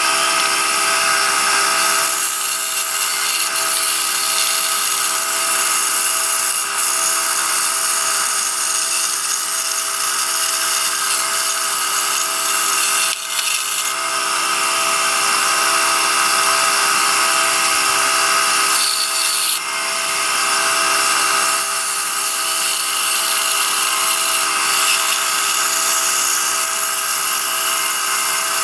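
Electric scroll saw running steadily, its motor humming with the rasp of the reciprocating blade cutting through a wooden spoon blank along a curved line.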